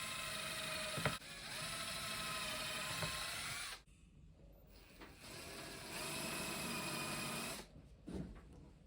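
Electric disc grinder running with a steady high whine. It shuts off a little under four seconds in, starts up again about two seconds later and stops once more near the end. There is a short knock about a second in and another just after it stops.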